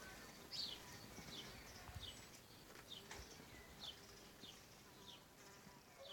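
Faint, short high chirps from a bird, repeated about twice a second, each sliding down in pitch.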